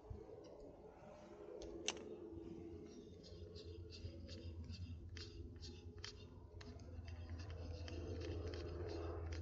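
Spinning reel being wound in after a cast: one sharp click about two seconds in, then a steady run of ticks at about three a second as the handle turns. A low rumble underneath grows louder toward the end.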